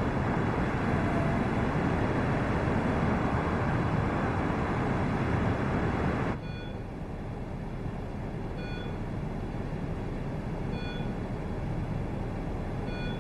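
Steady outdoor background rumble, like distant traffic. About six seconds in it cuts off abruptly to a quieter hum, and two faint short beeps sound about two seconds apart.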